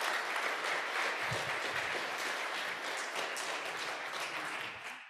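Audience applauding, a dense patter of many hands clapping that thins out toward the end.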